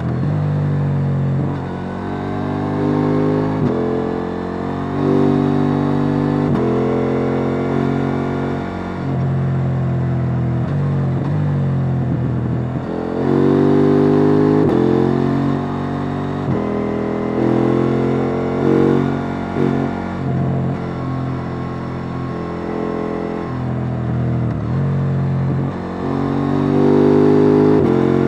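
KTM 890 Duke R's parallel-twin engine on its stock exhaust, heard from on board while riding: it pulls hard in repeated bursts, the pitch climbing and then stepping down at each upshift, with the throttle closing and the revs falling off between bursts.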